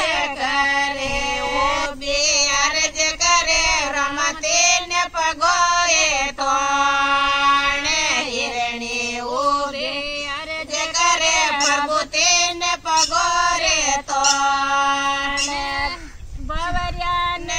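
Women's voices singing a Marwari devotional bhajan, high-pitched, with long held notes and pitch that bends and slides between them. The singing drops off briefly near the end before resuming.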